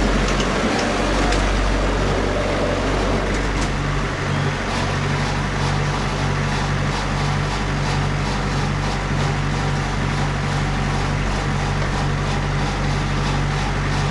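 Kubota diesel engine of a Wood-Mizer LT-40 Super Hydraulic sawmill running steadily under work, its note shifting about four seconds in.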